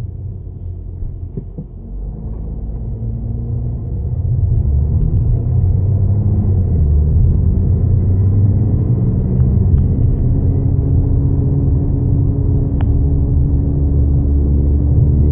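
Defective wheel bearing on an Audi A6 4G TDI quattro making a low rumbling drone while the car is driven. It grows louder over the first few seconds, and a few faint tones above it climb slowly in pitch.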